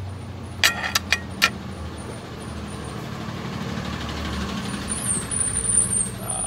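A motor vehicle's engine running with a low, steady hum, growing louder over several seconds as it comes past on the street. A few sharp clicks sound about a second in.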